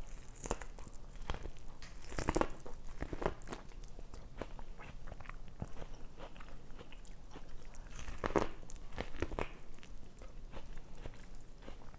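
Close-miked eating: biting and chewing with short wet clicks and smacks of the mouth, a cluster about two to three seconds in and another near eight to nine seconds in.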